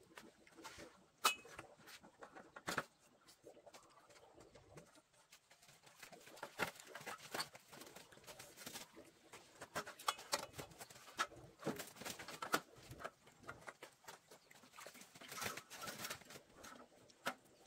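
Domestic chickens clucking softly, with irregular light taps and rustles throughout and one sharper tap about a second in.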